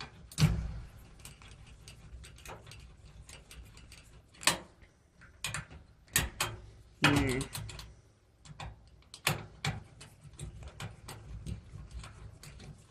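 A hand nut driver backing screws out of an electric clothes dryer's sheet-metal panel: scattered clicks and small metal taps, with a sharper knock about half a second in.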